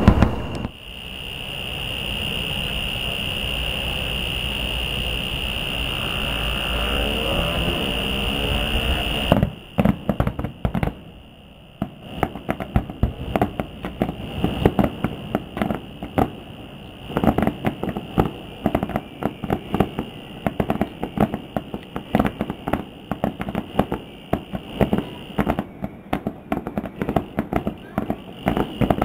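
Fireworks display: after a steady rumbling noise, rapid, irregular popping and crackling of many shell bursts begins about a third of the way in and keeps going.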